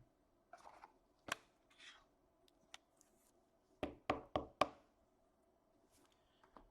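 Trading cards being handled at a table: soft rustles and sharp taps, one about a second in and four in quick succession about four seconds in.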